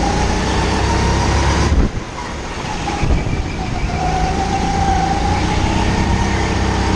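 Onboard sound of a Sodi RX8 rental kart driven hard: a steady low drone with a high whine that climbs and falls with speed. The power drops off sharply about two seconds in, as the driver lifts for a corner, then builds again with the whine rising.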